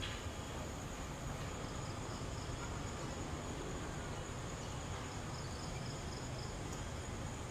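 Crickets trilling steadily at a high pitch, with a second insect's short run of pulsed chirps heard twice, about two seconds in and again about five seconds in, over a low background rumble.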